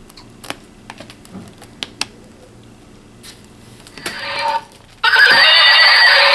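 A few faint clicks, then a toy's electronic horse-whinny sound effect, starting about four seconds in and turning loud about a second later.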